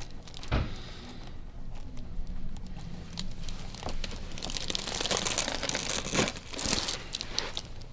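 Crinkling and rustling with many small clicks, busiest in the second half, and a soft thump about half a second in: a person shifting on a chiropractic table.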